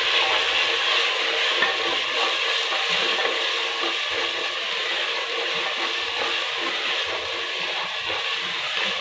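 Chana dal frying with a steady sizzle in a pressure cooker while a wooden spatula stirs and scrapes it: the dal is being roasted (bhuna) with its spices.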